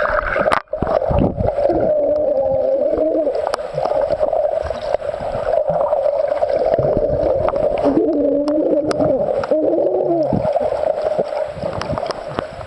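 Muffled underwater sound of a swimming pool, picked up by a submerged camera: a steady hum with wavering, gliding tones over it, and scattered bubbling clicks and knocks from swimmers moving in the water.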